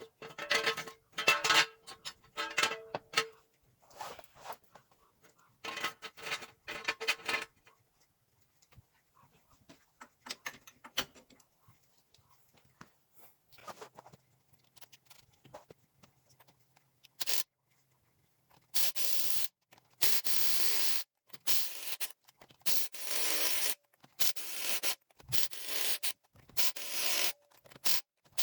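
Compact 18-volt Ridgid cordless impact wrench run in repeated bursts of about a second each on the truck's factory lug nuts, the wrench struggling to break them loose. In the first several seconds, a few clusters of short sharp sounds.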